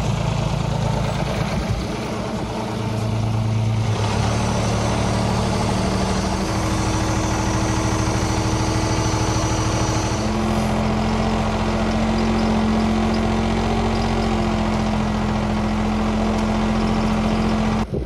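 Schäffer 2024 SLT compact loader's diesel engine running while the loader handles a 500 kg big bag on its forks. The engine note changes abruptly about four seconds in and again about ten seconds in.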